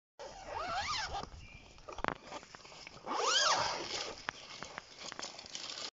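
An animal calling twice, each call under a second long and rising then falling in pitch, with a sharp click between the calls.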